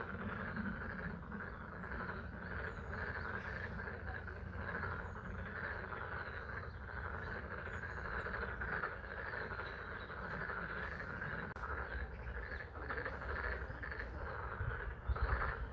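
A chorus of frogs calling from a pond, a dense, steady, unbroken din, over light spring rain. A few low thumps come near the end.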